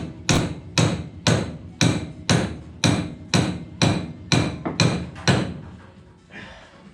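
Hammer striking metal in a steady rhythm, about two blows a second, each with a short metallic ring; the blows stop a little over five seconds in. The hammering is an attempt to knock free a stuck part, typical of the work to get the car's steering box off.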